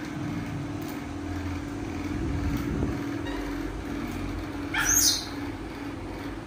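A steady low hum, with one short, high squeal that falls sharply in pitch about five seconds in.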